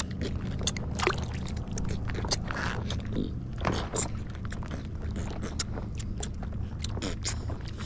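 A small boat's engine running steadily, with scattered sharp knocks and clicks over it.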